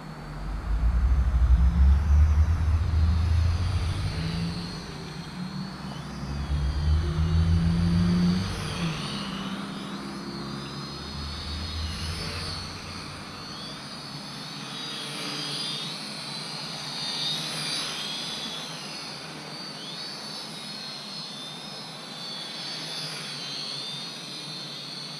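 Toy quadcopter's four small motors and propellers whining at a high pitch in flight, the pitch wavering up and down as the throttle and stick inputs change. For the first eight seconds, gusts of wind rumble on the microphone.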